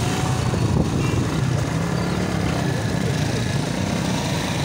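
Steady low rumble of motor traffic engines.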